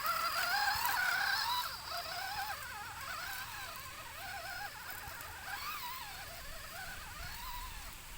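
Small electric motor of a toy RC off-road truck whining, its pitch wavering up and down with the throttle; it is loudest in the first two seconds.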